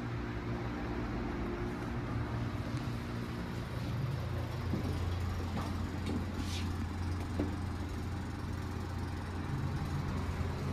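Steady low rumble and hum around a Mitsubishi Elepet Advance V passenger elevator as it is called and boarded. The hum changes about four seconds in, and a short hiss comes about six and a half seconds in.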